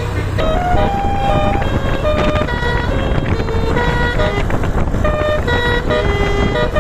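Basuri musical bus horn playing a quick melody of short notes that step up and down in pitch, over a steady low rumble.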